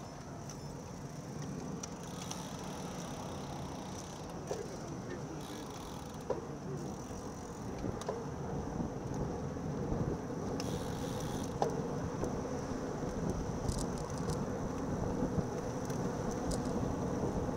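Riding noise from a bicycle-mounted camera: a steady rumble of tyres on asphalt and wind, with scattered small rattles and clicks from the bike. It gets a little louder about halfway through.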